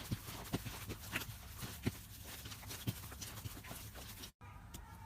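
Slime being squeezed and pressed, with irregular wet clicks and pops over a low hum, cut off briefly near the end.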